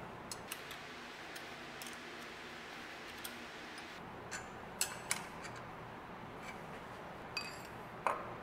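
Scattered light metallic clicks and taps of a steel square block being set against the lathe chuck and the ER32 collet nut, the sharpest pair near the middle and another near the end. A faint low hum runs under the first few seconds.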